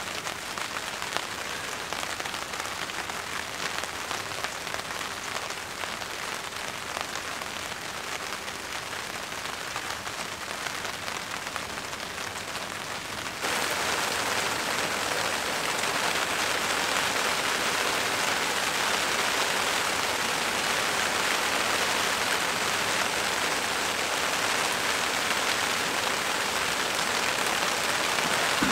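Steady rain falling on a tarp shelter overhead. About halfway through it suddenly gets louder and brighter.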